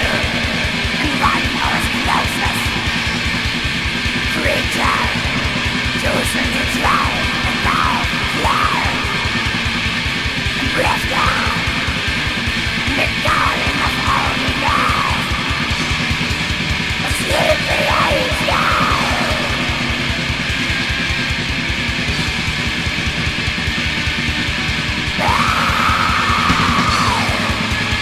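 Raw black metal: a dense, steady wall of distorted guitars and drums, with harsh shrieked vocals coming in short phrases throughout and one longer held shriek near the end.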